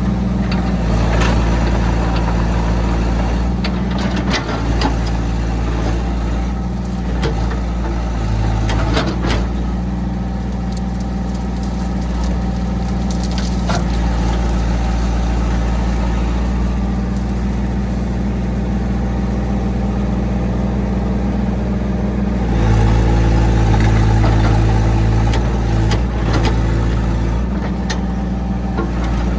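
Hitachi EX60 excavator's diesel engine running steadily as it digs out a pond edge, with scattered sharp knocks. The engine works harder for a few seconds near the end.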